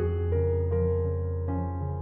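Slow background piano music: held notes change every half second or so over a sustained low bass note.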